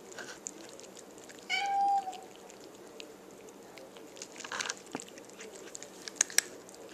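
A cat meows once, a short high cry of about half a second, about one and a half seconds in. Around it come scattered sharp crunching clicks of dry kibble being chewed, the loudest two a little after six seconds.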